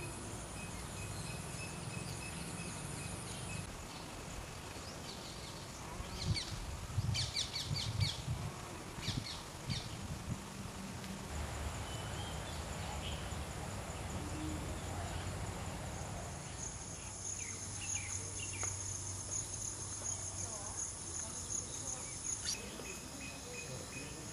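Insects chirring steadily in a high, thin drone, with a cluster of short chirps about six to ten seconds in. The mix of sounds changes abruptly twice.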